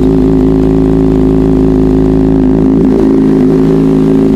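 Kawasaki ZX-6R inline-four engine idling steadily through a new SC-Project GP70R titanium exhaust, still warming up after a cold start.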